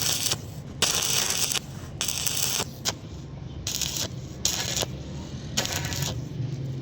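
Electric arc welding crackling and sizzling in short bursts, the arc struck and broken again about every second, over a steady low hum.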